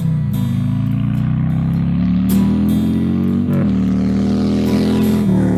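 An engine accelerating through the gears. Its pitch climbs steadily, drops suddenly at a shift about three and a half seconds in, climbs again, and shifts once more near the end, with guitar music playing along.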